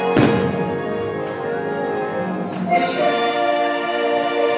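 Orchestral fireworks-show music playing steadily, broken by a loud firework bang just after the start and a weaker bang about three seconds in.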